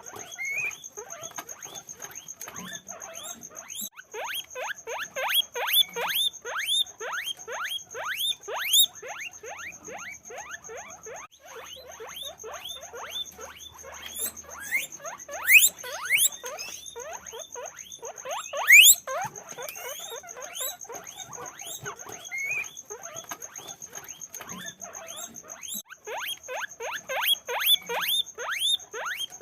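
Guinea pigs squeaking: a dense run of short rising squeaks, several a second, from more than one animal, louder in clusters about a third of the way in, twice in the middle and again near the end. A steady faint high-pitched whine runs underneath.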